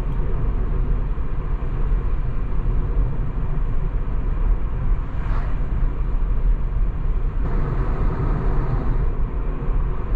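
Steady road and tyre rumble with wind hiss inside the cabin of a Tesla Model 3 driving at about 70 km/h on a country road, with no engine note. A brief swell of hiss comes about five seconds in.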